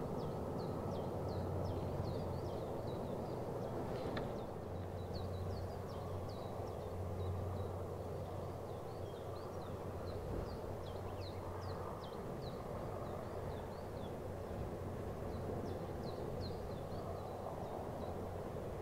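Distant, steady drone of an Airbus A400M Atlas's four turboprop engines with a low hum, while small birds chirp in quick short notes throughout.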